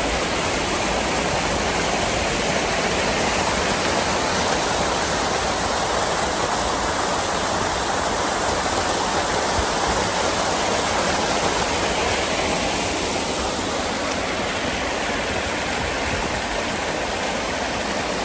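Rain-swollen creek rushing in a steady, loud roar of whitewater: a normally dry trail crossing running with rapids after heavy rain.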